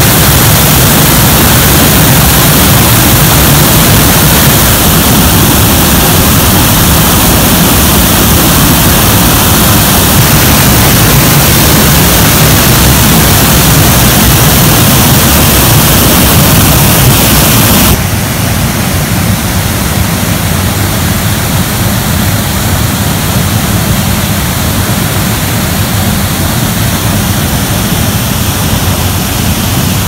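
Waterfall plunging onto rocks: a loud, steady rush of falling water. About eighteen seconds in it drops suddenly to a softer, duller rush.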